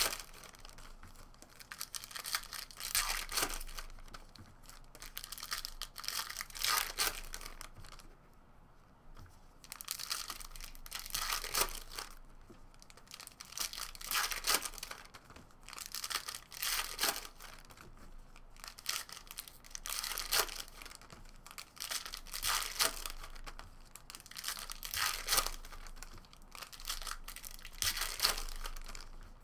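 Foil wrappers of trading-card packs being torn open and crinkled by hand, over and over, every three seconds or so.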